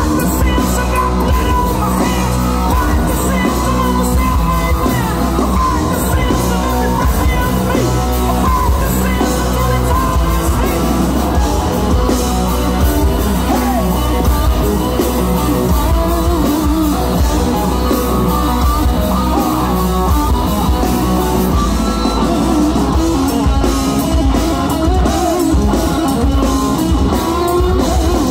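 Rock band playing live and loud: electric guitars, bass and drum kit, with singing at times.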